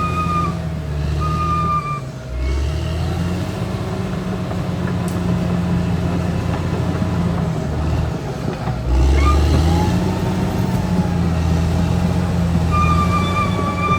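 Caterpillar D6R XL bulldozer's diesel engine running under load, its note shifting about two seconds in and again about nine seconds in.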